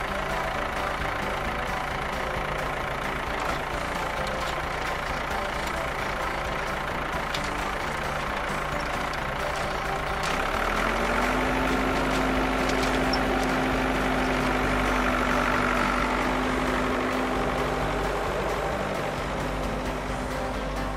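Tractor engine sound effect running steadily. About ten seconds in it gets louder and a steady hum joins it.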